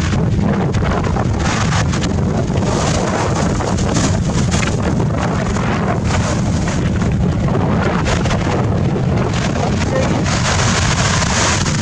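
Sea waves breaking and washing over a pebble beach, a steady rushing hiss that swells a few times, under a heavy low rumble of wind buffeting the microphone.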